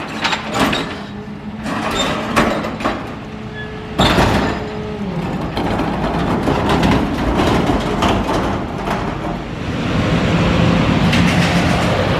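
Mercedes Econic 2635 garbage truck with an MUT rear-load press, its engine and hydraulics running under load while a large metal container is shaken empty on the rear lifter, with repeated knocks and bangs. About 4 s in there is a sudden loud metallic clatter as the bin comes down. The machinery then keeps running steadily and grows louder near the end.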